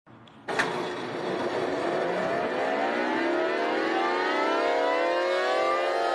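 A siren switches on with a sharp click about half a second in, then its pitch climbs slowly and steadily.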